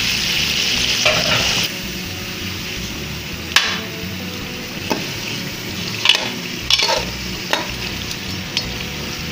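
Raw chicken pieces sizzling as they fry in spiced masala in a metal kadai, stirred with a slotted metal spoon that knocks against the pan a few times. The sizzle is loudest for the first couple of seconds, then settles to a softer hiss.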